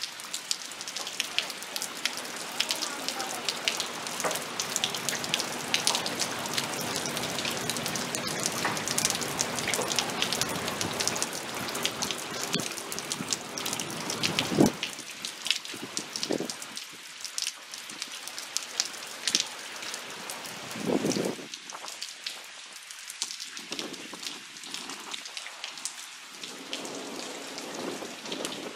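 Heavy rain pouring down, a dense hiss full of close drops splattering on wet surfaces. A sharp knock comes about halfway through, after which the rain sounds thinner and less deep.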